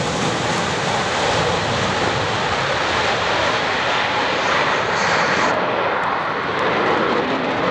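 Jet noise of a Polish Air Force MiG-29's two Klimov RD-33 turbofans as the fighter flies its display, a loud, steady rushing roar. The highest hiss drops away about five and a half seconds in while the low rumble carries on.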